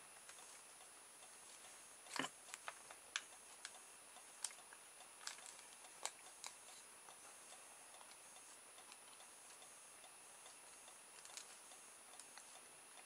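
Faint, scattered clicks and taps of hands handling a small plastic toy boat and its wire-and-plastic rudder piece, over near silence; most come in the first half, a few more near the end.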